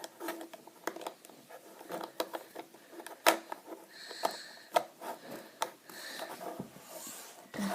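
Plastic LEGO bricks and plates being handled and pressed together, giving irregular sharp clicks.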